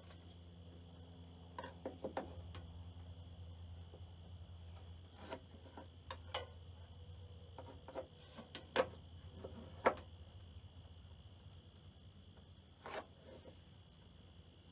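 A few scattered light knocks and clicks from a man working by hand on an aluminum ladder at the wooden edge of the platform, over a steady chorus of field insects such as crickets.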